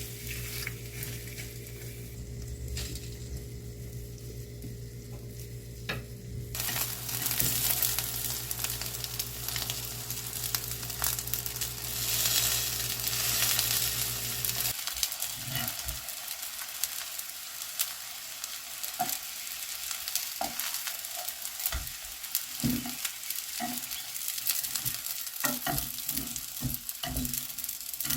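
Food sizzling as it fries in oil in a pan, starting abruptly about six seconds in and running on as a dense hiss. In the second half it is joined by scattered clicks of a utensil against the pan.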